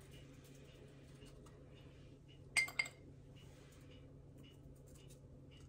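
Two quick clinks of a metal spoon against a small glass bowl of cinnamon sugar, a fraction of a second apart about two and a half seconds in, each ringing briefly. Around them, faint light ticks over a low steady hum.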